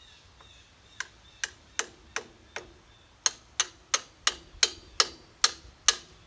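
Hammer tapping steel pins into a mini excavator quick-connect coupler to line up the bolt holes, each tap a sharp metallic knock with a short ring. The taps come a few at a time at first, then settle into a steady run of about three a second from about three seconds in.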